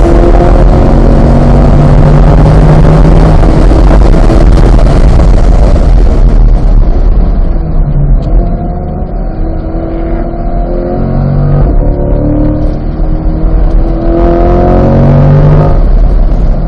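C8 Corvette's 6.2-litre LT2 V8 at full throttle in fourth gear, its pitch slowly climbing, then falling away about six seconds in as the car brakes hard and drops to third for a corner. The engine then pulls up again in third and eases off near the end.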